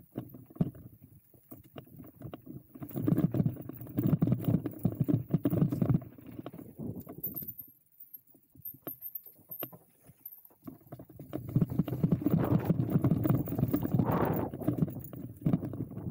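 E-mountain bike rolling fast over a wooden northshore trail: a dense clatter of tyres on planks and the bike rattling. It comes in two loud stretches, about three seconds in and again from about eleven seconds in, with a quieter lull between.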